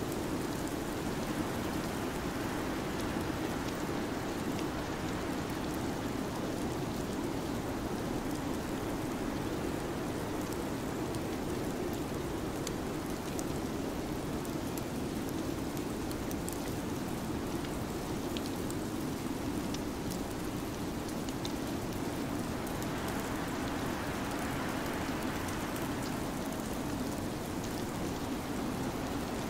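Steady, unbroken rushing noise of a winter-storm ambience, with faint scattered light ticks.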